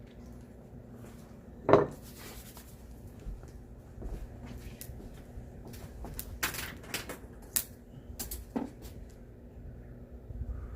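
Metal cookware clanking and clattering: one loud clank about two seconds in, then a run of lighter clicks and knocks a few seconds later.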